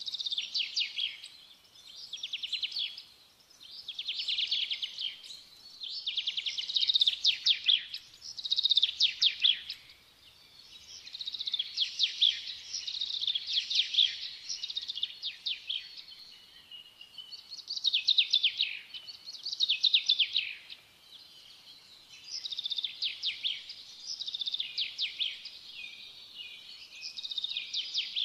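A small bird singing: phrases of rapid, high chirping trills, each a second or two long, repeated with short pauses throughout.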